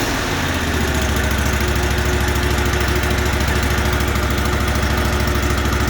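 Exmark Lazer Z zero-turn mower's 25 hp Kohler Command Pro EFI V-twin engine throttling down in the first second, then idling steadily with an even pulse. It runs smooth, with no rattling.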